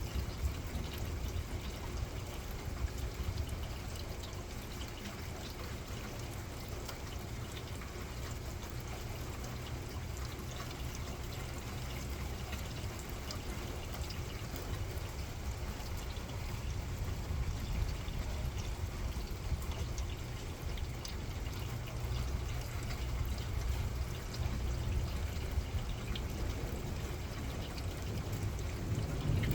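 Rain pouring down steadily, with a dense patter of drops and a low steady rumble underneath.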